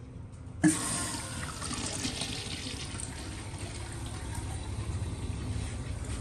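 TOTO sensor flush valve on a urinal clicking open about half a second in, then water rushing steadily through the urinal as it flushes.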